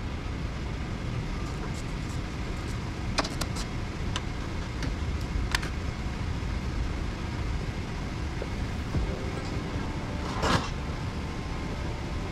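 A vehicle engine running with a steady low rumble, with a few sharp clicks and a louder brief clatter about ten seconds in.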